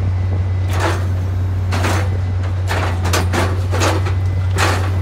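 Track-laying machine running: its engine gives a steady low drone, with short hissing bursts of noise roughly once a second.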